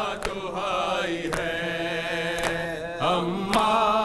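Noha lament sung with long, wavering held notes, over sharp chest-beating (matam) strikes landing in unison about once every second.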